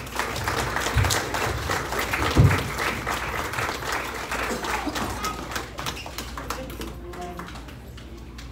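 Audience applauding, swelling within the first second and dying away over about six seconds. Two dull thumps come through it, the louder about two and a half seconds in.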